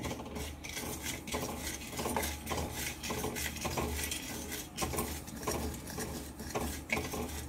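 Wooden spatula stirring and scraping poppy seeds around a metal kadai as they dry-roast, in quick, irregular strokes over a low steady hum.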